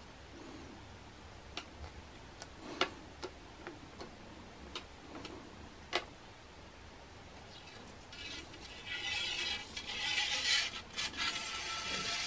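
Aluminium duct tape being wrapped around a carbon fishing rod blank: a few light clicks and taps, then about four seconds of dense crinkling near the end as the foil tape is pressed down.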